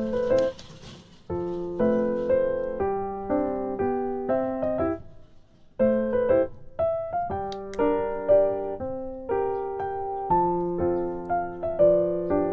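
Background piano music: a slow, gentle melody of held notes that pauses briefly twice.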